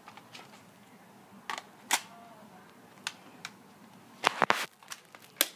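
Sharp plastic clicks and snaps from an airsoft M4A1 being worked or fired: single clicks spread out, then a quick run of several about four seconds in.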